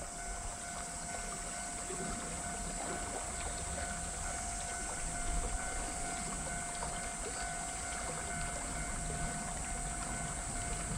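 Steady outdoor ambience by a river: low wind rumble on the microphone under an even hiss of flowing water, with a constant high-pitched hiss running over it.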